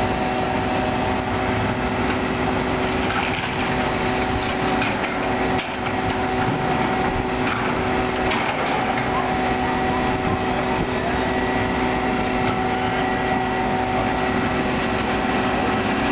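Excavators' diesel engines running with a steady hum under the crack and crunch of timber debris as a wood-frame building is torn down, with wind on the microphone.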